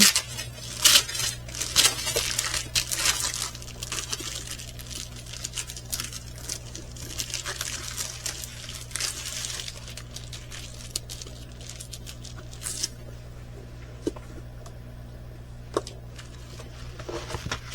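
Packaging crinkling and rustling as a diamond painting kit is unpacked by hand, busiest in the first half, then quieter handling with a few small clicks.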